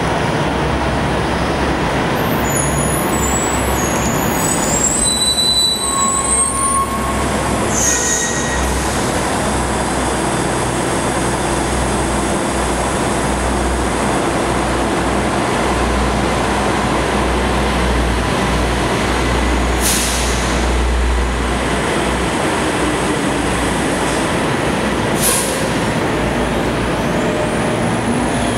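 A 2009 New Flyer DE60LF articulated diesel-electric hybrid bus with a GM-Allison EP-50 drive runs with a steady low drone as it pulls in and stands at the platform. Its brakes squeal as it comes to a stop in the first several seconds, and short air-brake hisses come about eight seconds in and twice more later. The sound echoes in the underground station.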